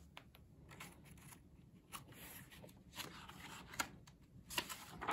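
Soft rustling of paper and a few light clicks as a picture-book page is handled and turned, the rustle loudest near the end.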